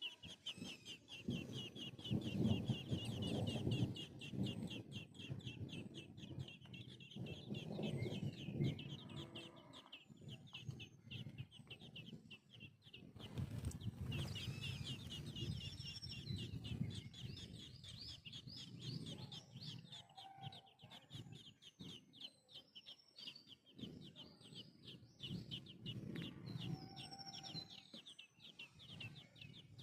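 Birds chirping in a fast, unbroken string of high notes, with a few other short calls over it. A lower sound comes and goes in bouts.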